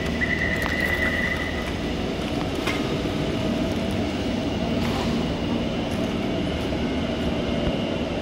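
Metro station platform noise: the steady rumble of a subway train at the platform, with a high steady tone sounding for about the first second and a half.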